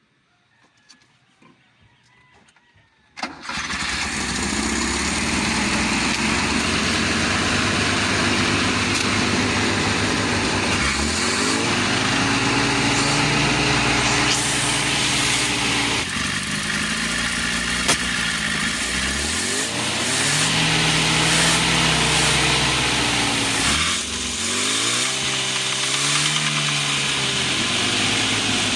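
Car engine starting suddenly about three seconds in, then running and being revved up and down several times, with one sharp pop midway through.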